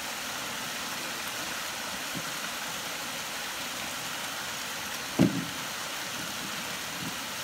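Creek water running steadily over a small stone cascade, with one short dull thump about five seconds in.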